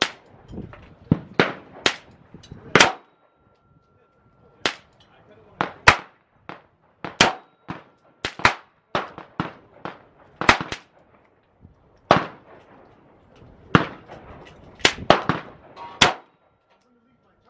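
Pistol shots from several shooters firing at once along a range's firing line: irregular sharp single cracks, some in quick clusters, others spaced a second or more apart.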